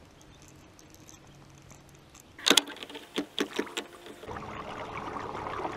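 Several sharp knocks about two and a half seconds in, the first the loudest. About four seconds in, a small electric trolling motor starts and runs with a steady hum and the sound of water churning.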